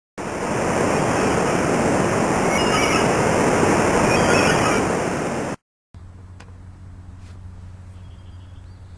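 A loud, steady rushing noise that cuts off abruptly about five and a half seconds in. Then a much quieter background with a low steady hum and a few faint clicks.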